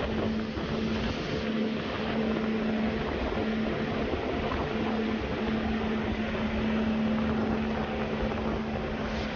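Twin Suzuki outboard motors driving a fishing boat at cruising speed: a steady engine hum under a constant rush of wind and water from the hull and wake.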